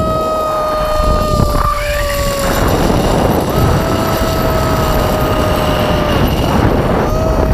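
Zip-line trolley pulleys running along the steel cable with a steady whine whose pitch sags slowly, cutting out once for about a second near the middle. Wind rushes across the microphone throughout.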